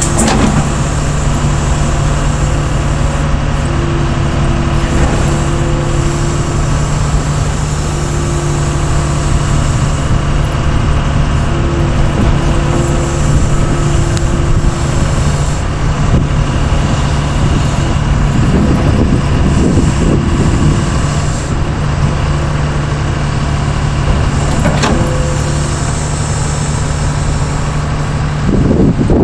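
Doosan DX140W wheeled excavator's diesel engine running steadily, with a higher tone that comes and goes several times on top of it.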